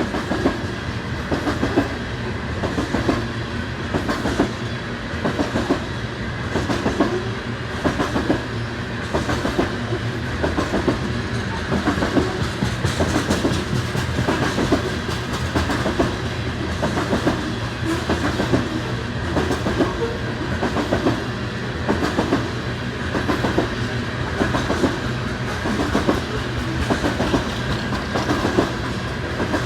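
Freight train cars rolling past, the wheels clicking over rail joints in a steady repeating rhythm as the train gathers speed.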